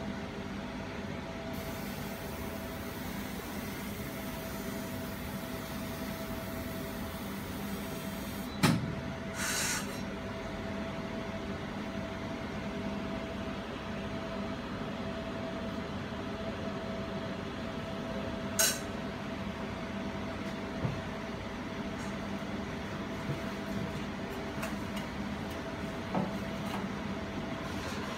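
Jewelry laser welding machine running with a steady humming drone. Two sharp clicks come about nine and nineteen seconds in, and a few fainter ticks follow later.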